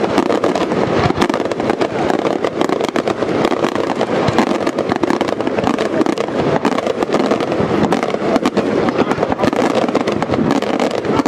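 Aerial firework shells bursting in a dense, continuous barrage of rapid, overlapping bangs.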